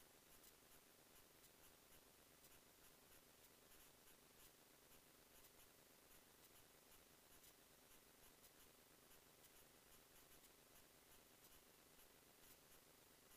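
Near silence: a faint steady hiss with faint high ticks about three times a second.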